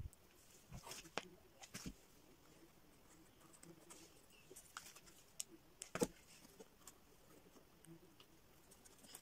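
Faint handling noises: scattered light taps and clicks as small foam flowers are picked up and pressed onto a cardboard birdhouse, the loudest tap about six seconds in.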